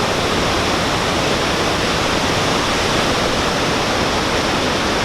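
Victoria Falls: a loud, steady, even rush of falling water, unbroken throughout.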